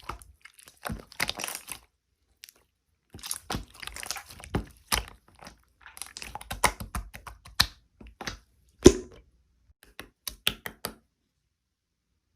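Close, crisp crackling and crunching: irregular clusters of short clicks and pops with silent gaps between them, the loudest a sharp snap about nine seconds in. It stops about eleven seconds in.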